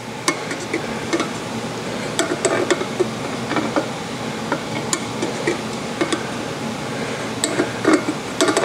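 Light metal clicks and clinks, irregular and closely spaced, as a gauge tool is handled and swung around a Model T flywheel's ring of magnets. A steady low hum runs underneath.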